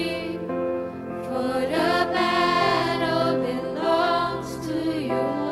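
A slow worship song: singers with sustained keyboard chords underneath.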